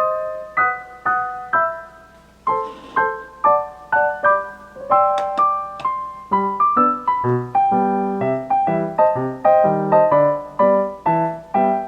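Background piano music: a light melody of separate notes, roughly two to three a second, with lower bass notes joining about halfway through.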